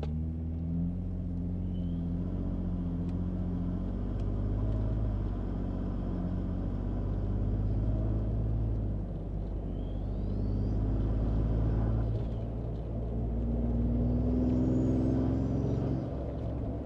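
2022 Toyota Tundra's twin-turbo 3.4 L V6 with a cat-back exhaust and cold air intake, heard from inside the cab while accelerating at moderate throttle: a low engine and exhaust drone that swells and rises in pitch a few times. Twice in the second half comes a faint rising whine of the turbos spooling up and of the intake.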